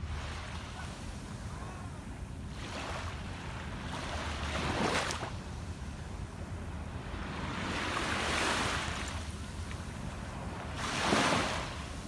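Small sea waves washing up onto a sandy beach, about four swells of surf rising and falling, the loudest near the end, with wind rumbling on the microphone underneath.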